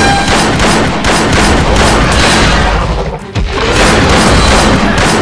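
Sustained rapid automatic gunfire sound effect, shot after shot in a dense stream, with a brief break a little over three seconds in before it resumes.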